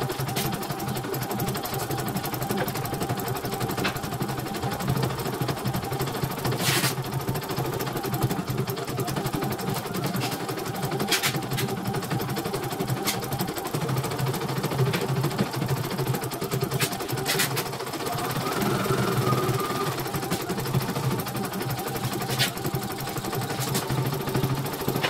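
Elnoss computerized embroidery machine stitching out a design, its needle mechanism and hoop carriage running steadily at speed, with a few sharp clicks along the way.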